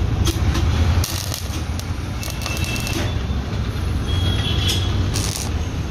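Workshop machinery running with a steady low hum, over irregular metallic scraping and clicking and a couple of brief high squeals.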